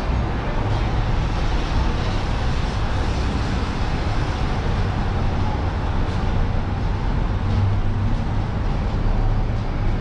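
City road traffic from the busy junction below: a steady, dense rumble of cars, taxis and buses with no single vehicle standing out.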